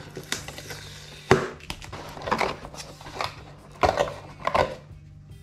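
Plastic packaging crinkling and cardboard rubbing and bumping as a boxed RC truck is unwrapped and slid out of its box insert: a series of irregular rustles and knocks.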